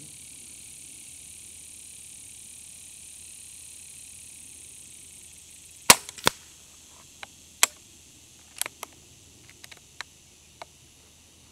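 Benjamin Fortitude .22 PCP air rifle firing one shot about six seconds in: a sharp crack with a second crack close behind it. Then a run of light metallic clicks as the bolt is cycled to load the next pellet.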